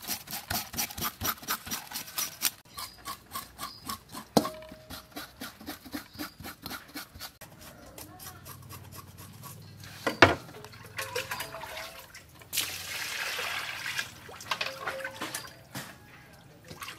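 Knife scraping scales off red-tail fish in a stainless steel bowl: quick rhythmic strokes, about four or five a second, fading after a few seconds. A sharp knock about ten seconds in, then a stretch of wet rubbing and swishing.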